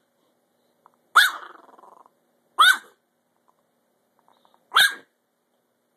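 Small long-haired chihuahua barking three times in short, sharp barks, a second or two apart, while guarding her treat.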